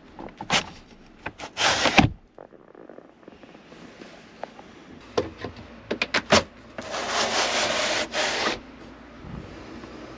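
Rustling and scattered knocks and clicks, with a longer stretch of rustling about two-thirds of the way through.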